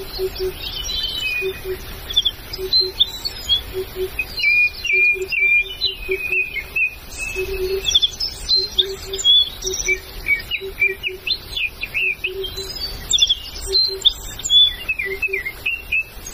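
Several forest birds chirping and trilling at once in quick, overlapping phrases. Underneath, a short low note repeats irregularly, about once or twice a second.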